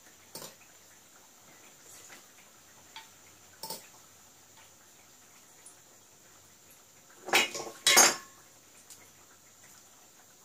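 Kitchenware clinking against a glass baking dish as fried eggplants are shifted into place in it: a few light clicks, then two louder clattering knocks about seven to eight seconds in.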